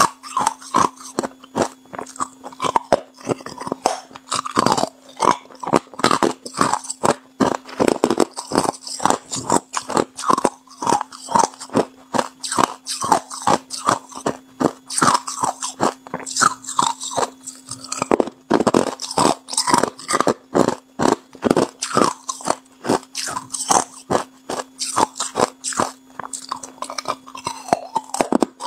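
Hard clear ice being bitten and chewed, a rapid, continuous run of sharp crunches, several a second.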